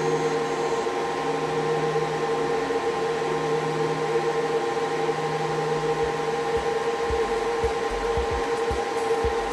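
The seven cooling fans of an Octominer mining-rig case and its server power supply running steadily just after power-on, a loud even whir with a high hum. A few low thumps come in during the second half.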